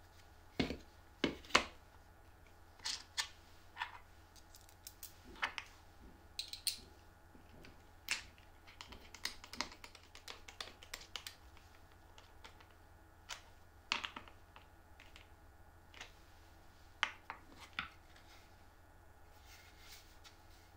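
Scattered clicks, taps and knocks of a plastic featherboard and its wooden block being handled, set down and bolted onto a router table, with a few loud knocks about a second in.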